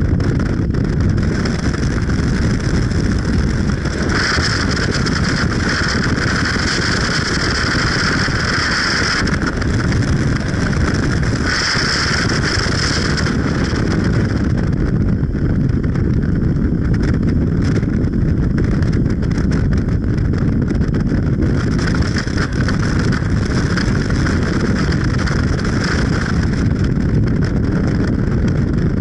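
Steady, loud rumble of a vehicle on the move, with wind noise on the microphone. A higher hiss swells up three times: about four seconds in, near twelve seconds, and again from about twenty-two seconds.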